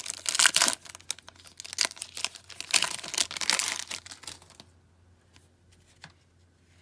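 A hockey-card pack wrapper being torn open and crinkled, a dense crackling for about the first four and a half seconds, then quiet with a few faint clicks.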